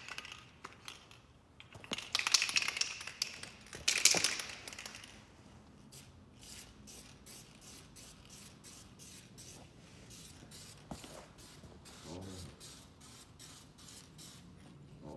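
Aerosol spray can hissing in two short bursts, about two and four seconds in, then a faint, even ticking rattle at about three a second from the can's mixing ball as the can is shaken. The can holds old product that does not spray out properly.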